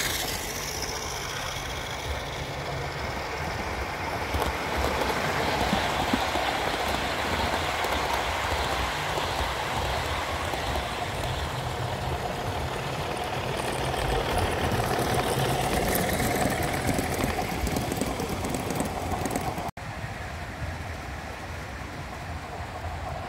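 Large-scale model train, a locomotive with coaches, running along the track with a steady rolling rumble of wheels on rail. It grows a little louder later on, then drops suddenly a few seconds before the end.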